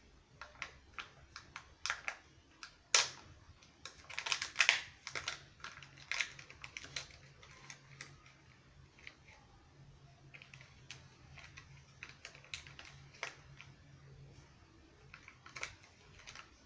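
Hands handling the plastic packaging of a Kinder Joy surprise egg, giving irregular sharp clicks and crinkles with a dense cluster about four to five seconds in.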